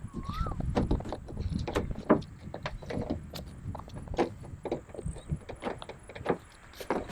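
Irregular taps, knocks and clicks of an Apple MacBook M1 and its packaging being handled during unboxing.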